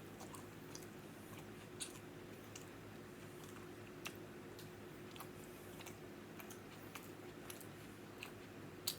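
Close-miked chewing of food, with scattered sharp mouth clicks, the loudest near the end, over a steady low hum.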